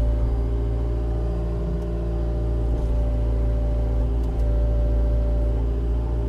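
Engine running steadily at low speed with a constant deep hum.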